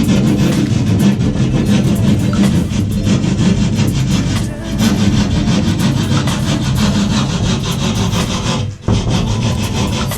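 Scraping strokes of a hand tool working a piece of sheetrock (drywall) to fit, under background music. The scraping pauses briefly twice.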